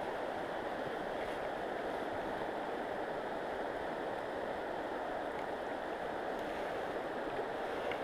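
Steady rush of a shallow, rocky river's current flowing past, an even, unbroken sound with no distinct events.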